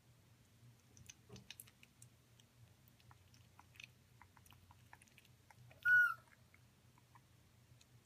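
African grey parrot eating an orange half: soft, scattered clicks and wet smacks of its beak working the peel and pulp. About six seconds in, one short, high whistle-like call stands out as the loudest sound.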